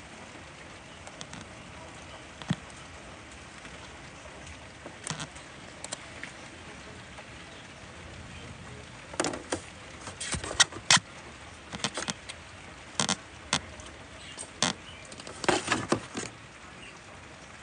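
Handling noise from a phone being set up on a window sill: irregular sharp clicks and knocks over a steady hiss, coming more often and louder from about halfway through.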